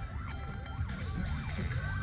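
Emergency vehicle siren in a fast yelp, its pitch sweeping up and down about three times a second, over the rumble of the vehicle's engine. It starts right at the beginning, alongside a steady higher tone.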